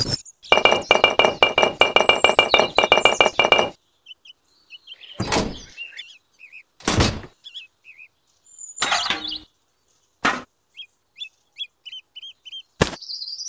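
A quick run of clinks from miniature clay bricks being stacked, lasting about three seconds. Then come five single knocks, a few seconds apart, as small objects are set down, with faint bird chirps between them.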